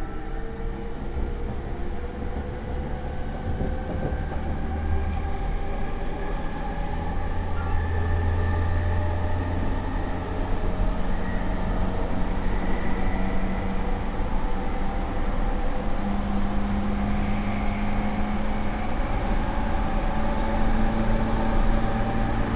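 JR E231-series train's traction motors, driven by a Mitsubishi IGBT inverter, whining under way beneath the rumble of the car, several tones slowly rising in pitch as it gathers speed and growing louder toward the end. The motor sound is loud and slightly abnormal, typical of this refurbished car.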